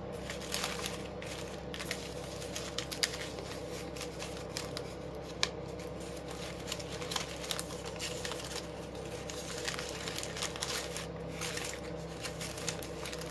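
Poly (polypropylene) ribbon crinkling and crackling in the hands as the loops of a bow are twisted and fluffed out, in many small irregular crackles over a steady low hum.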